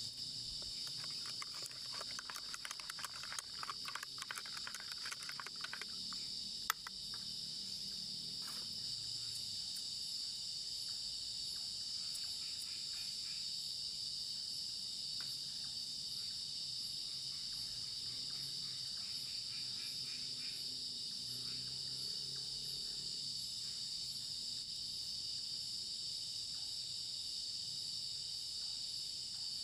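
Night-time forest insect chorus: a steady, shrill trilling of crickets and other insects. For the first few seconds there is light crackling, and a single sharp click comes about seven seconds in.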